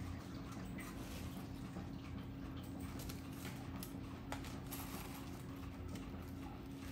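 Light snaps and rustles of leafy greens being picked from their stems by hand, with scattered small clicks, over a steady low hum.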